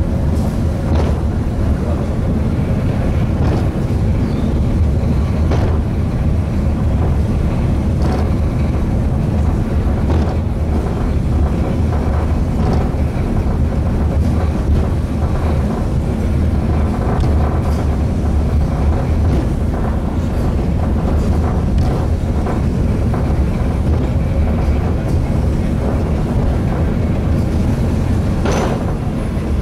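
Eizan cable car running on its incline: a steady low rumble of wheels on the rails and the hauling rope, with occasional faint clicks.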